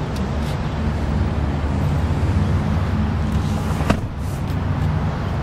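Steady low hum of an idling car engine, with a single sharp click about four seconds in.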